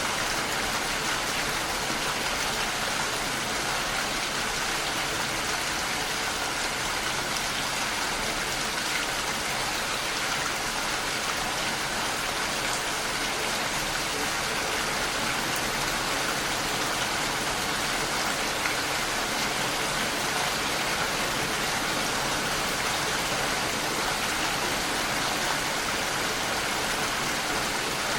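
Steady rain falling, an even hiss of many drops with no let-up or change.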